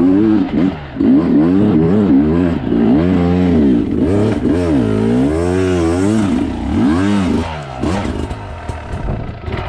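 Dirt bike engine under load on a steep rocky hill climb, the revs rising and falling about once a second as the throttle is worked on and off; near the end the revs drop and the engine runs lower and rougher.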